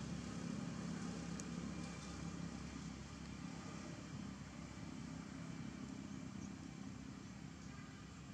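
Faint, steady low hum of a distant engine, easing slightly after about three seconds.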